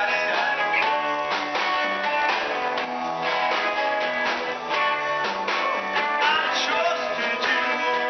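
Live band playing with electric guitars and a drum kit, a steady driving beat throughout.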